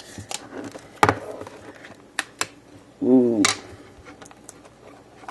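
Clicks, taps and rustles of a clear plastic iPod box being handled as its lid is lifted off, with the sharpest knock about a second in. About three seconds in there is a short voice-like sound.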